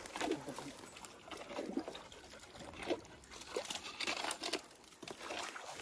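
A dog drinking from a small spring pool, lapping and splashing the water in short, irregular slurps.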